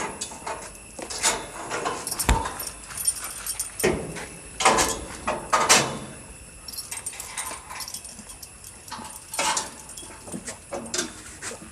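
Animal sounds: a string of short, sharp, irregular noises.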